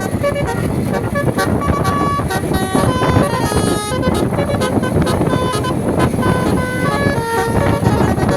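Basuri "telolet" multi-tone bus horn playing a quick tune of short stepped notes, over steady vehicle noise.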